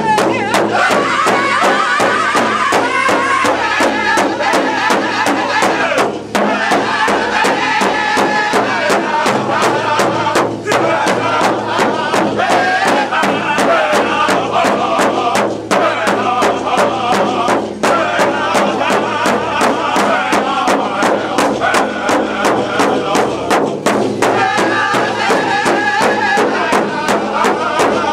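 Powwow drum group singing together over a large hide-covered powwow drum that several drummers strike in unison in a steady, even beat. The singing breaks off briefly a few times while the drum keeps going.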